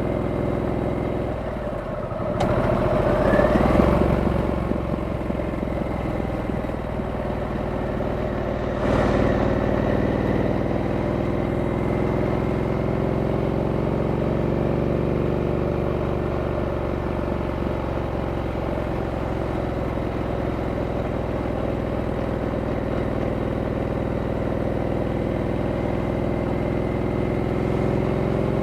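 Harley-Davidson Sportster S's 1250 cc V-twin running under way. It revs up with rising pitch about two to four seconds in and steps up again suddenly near nine seconds, then holds a steady cruise.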